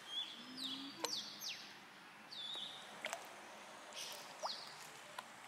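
A bird calling faintly: a series of short, high chirps, each sliding downward in pitch, repeated every half second or so.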